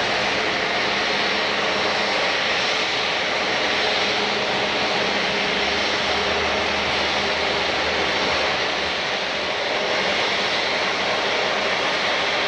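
Airliner engines running steadily: an even rush of noise with a few faint steady tones underneath, holding the same loudness throughout.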